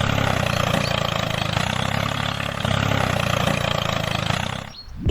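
Engine running steadily at idle with a low, even chug, fading out and stopping near the end.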